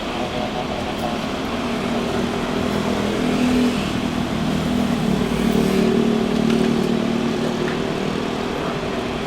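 Steady engine noise with a low droning hum that swells a little midway.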